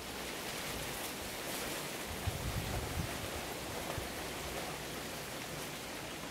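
Young wild boar rooting and feeding in weeds and leaf litter: a steady rustling noise, with a few soft low thumps about two to three seconds in.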